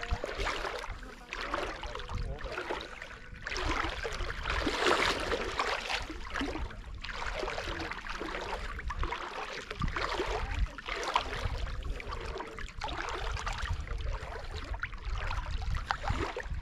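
Lagoon water splashing and sloshing close to the microphone in repeated, uneven surges, over a steady low rumble.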